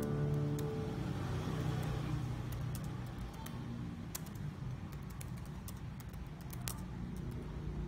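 Computer keyboard keys being typed at an uneven pace, a scattering of single sharp clicks over a low steady rumble.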